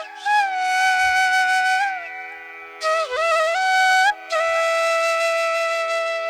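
Flute music: long held notes with a slight waver over a steady low drone. The middle note dips in pitch and climbs back up, and the last note is held for about two seconds.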